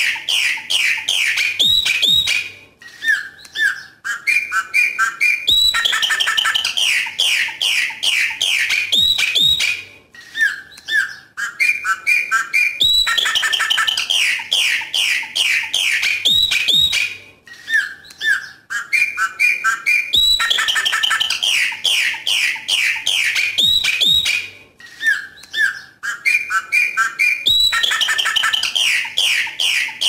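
Chopi blackbird (pássaro-preto) singing its 'coqui coqui' song: a quick run of down-slurred notes, then a few shorter notes a little lower. The same phrase repeats about every seven and a half seconds.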